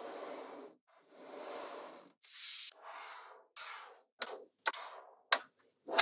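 Magnetic balls being handled: strips of balls rub and slide over one another and across the table, then snap together with several sharp clicks in the second half.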